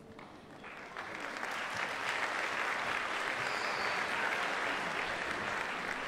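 Audience applauding, building up about a second in and then holding steady.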